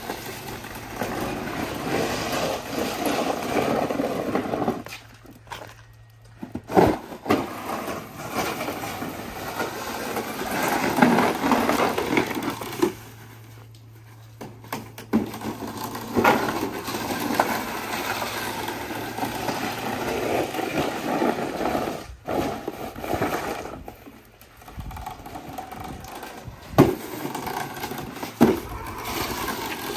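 Plastic blade of a homemade electric snow pusher scraping over wet concrete and shoving slush, with occasional knocks and a low steady hum in parts, broken off abruptly several times.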